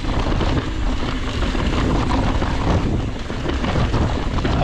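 Wind rushing over the microphone of a camera on an Ibis Ripmo full-suspension mountain bike descending a rocky dirt trail, mixed with constant rattling and crunching from the tyres and bike over stones.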